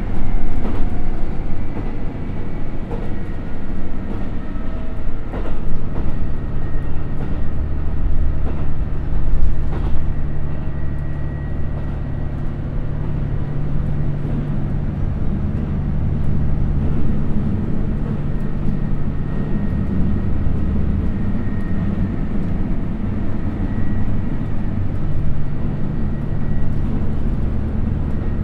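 Running sound of a KiHa 75 diesel railcar heard from inside the cabin, from a seat over the engine. Its Cummins NTA855 diesel engine drones steadily under the wheel and rail noise while the train slows from about 84 to 70 km/h. There are a few sharp clicks in the first ten seconds, and the engine note settles into a steady hum after about five seconds.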